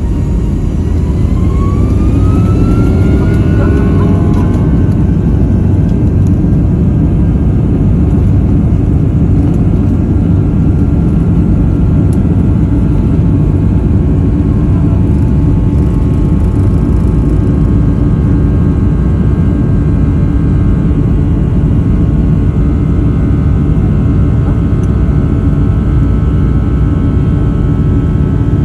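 Boeing 757's twin jet engines spooling up to takeoff thrust: a whine rising in pitch over the first few seconds, then a loud, steady roar with a high hum over it.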